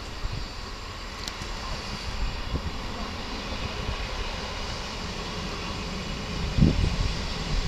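Class 158 diesel multiple unit approaching a station, its diesel engines giving a steady drone and rumble that grows slowly louder as it nears. A few low thumps come near the end.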